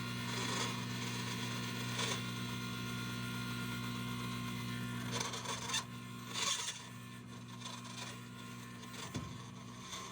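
Frigidaire refrigerator ice dispenser humming steadily while it is activated, with a few brief rubbing, scraping sounds about two, five and six seconds in. The dispenser is not delivering ice.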